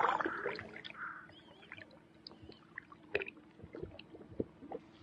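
Water splashing and dripping around a kayak for about the first second, then quiet water with a few light knocks against the hull and a couple of faint bird chirps.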